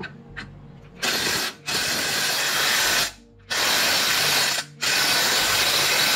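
Pneumatic air tool, likely an impact wrench, running in four loud bursts: a short first one, then three lasting over a second each, with brief gaps between.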